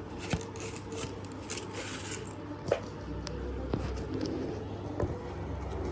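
Handling noise: a few sharp clicks and taps, the loudest about two and a half seconds in, with brief rubbing and scraping in the first half. A faint steady hum runs underneath.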